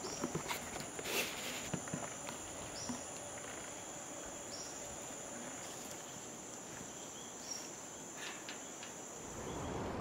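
Rainforest insects droning steadily at a high pitch, with a few short high chirps repeating every second or so in the middle and a few light knocks in the first couple of seconds.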